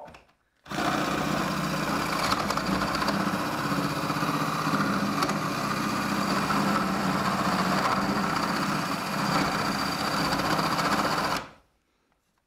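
Ryobi cordless drill with a flat spade bit boring through a timber floor joist, running steadily for about ten seconds from just under a second in and stopping near the end.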